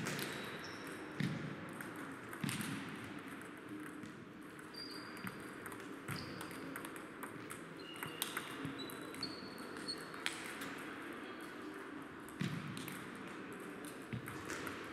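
Table tennis rallies: the light ball clicks repeatedly off paddles and table, echoing in a large sports hall with other tables in play. A few duller thuds and brief high shoe squeaks on the hall floor come in among the clicks.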